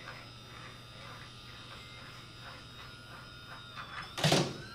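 Small electric motor of a steel-ball marble machine prototype starting up near the end: a rising whine, then a loud burst of noise as it runs too hard. Faint regular ticking, about three or four a second, comes before it.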